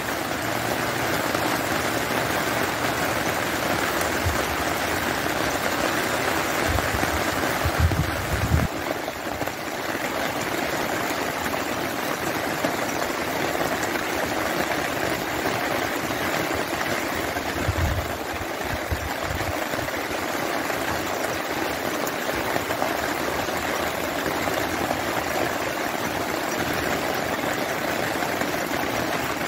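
Steady rain falling after a storm, with water running. A few low thumps stand out about eight seconds in and again near eighteen seconds.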